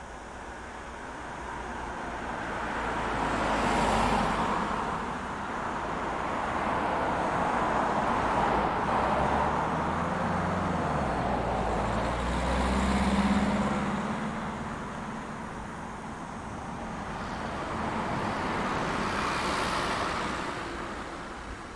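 Road traffic: vehicles pass one after another, each swelling and fading away. There is one pass about four seconds in, a longer stretch in the middle with a low engine hum, and another pass near the end.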